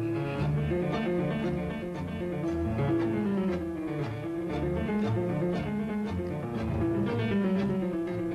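Tango music playing, with a steady beat in the bass.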